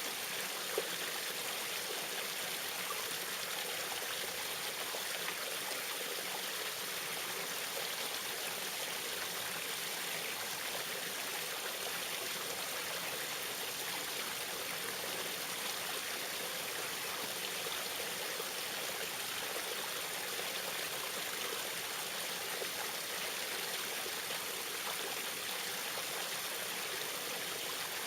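Small waterfall splashing and trickling in a steady, even rush of water, with one brief click just under a second in.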